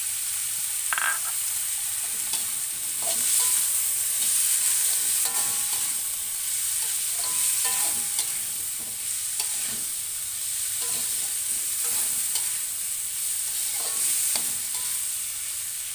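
Vegetables sizzling in hot oil in a metal wok, stirred and turned with a metal spatula that scrapes and clinks against the pan again and again.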